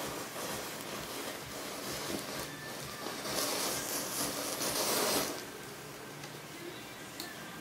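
Burning wooden matchsticks hissing, with small crackles. About three seconds in, the hiss swells into a louder rush for about two seconds as the flames flare up around the ring, then it settles back.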